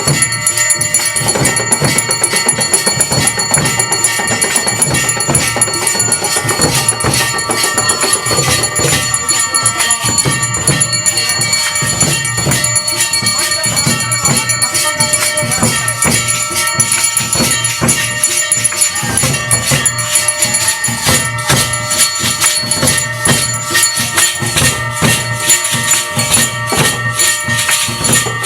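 Temple aarti music: bells and cymbals struck in a fast, unbroken clatter, with ringing metallic tones held steadily over it.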